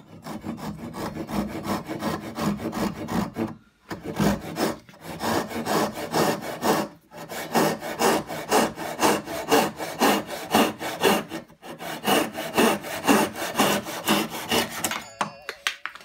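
Japanese pull saw ripping down the grain of a softwood block held in a vise: quick, even strokes, about three a second, with a few short pauses, stopping shortly before the end.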